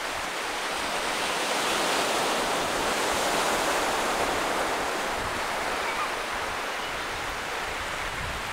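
Small waves breaking and washing up on a sandy beach, a steady rush of surf that swells a little a couple of seconds in.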